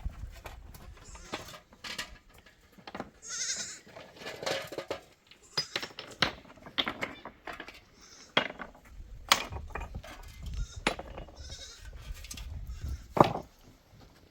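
Livestock bleating a few times, mixed with scattered sharp clicks and knocks.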